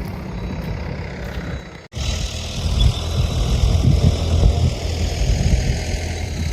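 An engine running steadily, breaking off for a moment about two seconds in and coming back louder.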